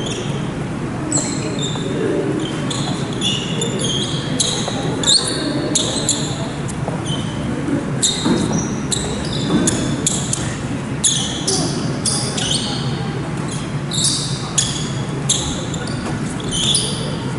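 Basketball game on a wooden gym floor: many short, high sneaker squeaks scattered throughout, a ball bouncing, and players' voices, all echoing in the large hall.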